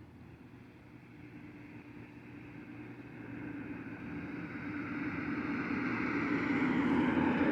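A car approaching on a nearby road, its engine and tyre noise growing steadily louder and loudest near the end.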